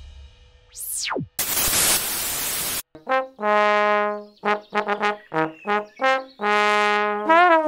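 A tone sweeping steeply down in pitch about a second in, then a burst of hiss that cuts off abruptly. A trombone then plays a tune of short notes and held notes, ending on a wavering note.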